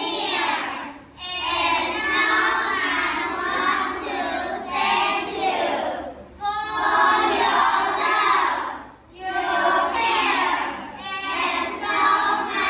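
A class of young children reciting a poem in unison, many voices together, pausing briefly between lines.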